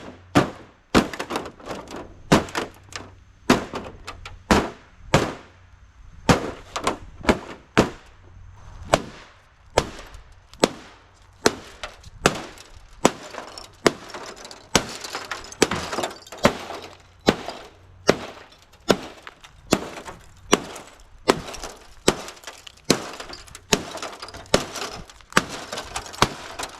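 An LG smart TV being struck over and over, a steady series of sharp blows about one to two a second, with glass cracking and breaking.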